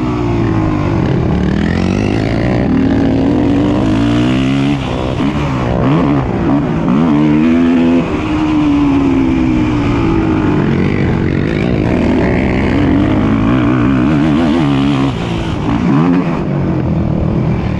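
Several racing ATV engines revving up and down together, their pitches rising and falling and crossing over one another as they accelerate and shift.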